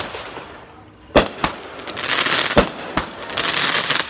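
Consumer aerial fireworks going off. A shot launches with a sharp thump and a fading hiss, then a series of sharp bangs overhead, some in quick pairs, with dense crackling between them as the stars burst.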